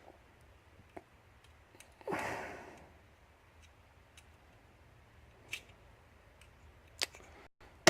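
Faint, scattered small metallic clicks of tools working a pin-tumbler lock cylinder in a vise while its tailpiece is being taken off, with one short rushing swish about two seconds in.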